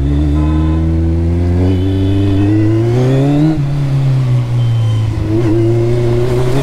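Kawasaki superbike engine accelerating: its pitch climbs steadily for about three and a half seconds, drops suddenly at a gear change, then holds and climbs again near the end.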